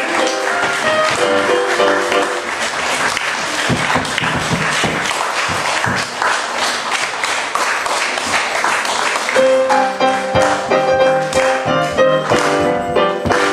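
Keyboard music fades out and a small audience claps for several seconds. About nine and a half seconds in, keyboard music starts up again.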